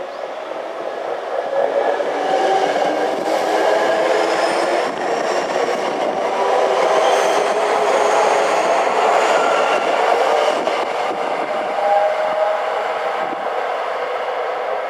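Saitama Railway 2000 series electric train pulling out of the station and passing close by, its VVVF inverter motors whining in several tones that climb in pitch as it gathers speed, over the clatter of wheels on the rails. The sound swells over the first two seconds and eases off after about twelve seconds as the train draws away.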